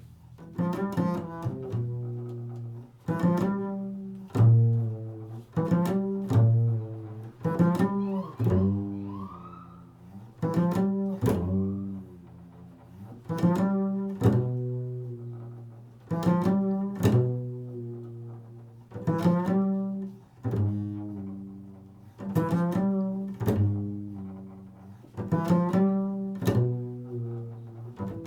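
Improvised solo instrumental music of low plucked string notes in slow, unhurried phrases, each note struck and then dying away, with a brief upward sliding sound about a third of the way in.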